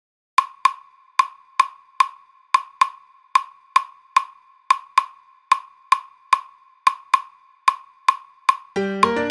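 Solo clave opening a salsa track: dry, ringing wooden clicks in the son clave pattern, five strokes per two-bar cycle, repeated steadily about four times. Near the end the band comes in with piano and bass.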